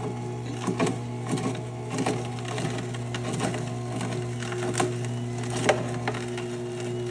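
Electric juicer motor running with a steady hum while produce is pushed down the chute, with irregular cracks and crunches as the pieces are ground.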